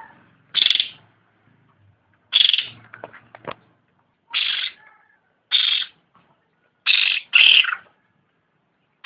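Cucak rante songbird calling: a series of six short, harsh notes, one every second or so, the last two close together. A few faint clicks follow the second note.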